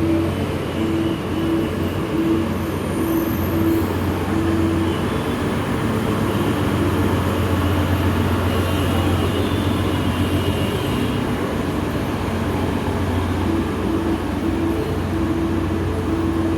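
Diesel engines of a KRDE diesel multiple unit (the ME204 airport train) running steadily with a low hum. A short beeping tone repeats about twice a second over it in the first few seconds and again near the end.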